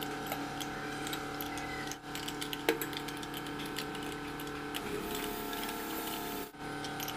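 Small metallic clicks and taps from hands working a chrome wall-mounted sink mixer and a pipe wrench closing on its connecting nut, over a steady low hum.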